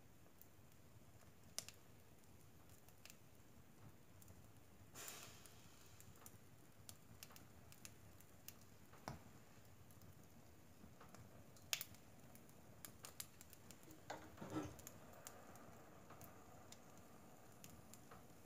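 Faint crackling of a wood fire of logs and pine cones in a wood-burning stove's open firebox: scattered soft pops and snaps, the sharpest about two-thirds of the way through, with a short hiss about five seconds in and a small cluster of pops with a hiss a few seconds before the end.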